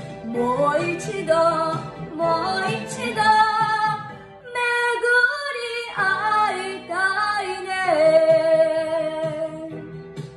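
A young girl singing a Japanese song over a karaoke backing track, closing the phrase on a long held note near the end.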